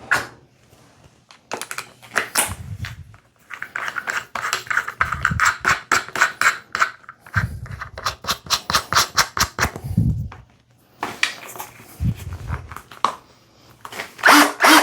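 Clicks, rattles and knocks of a telescoping dryer-vent brush rod being handled and fitted onto a drill. A dense run of rapid clicks comes in the middle, among several dull thumps.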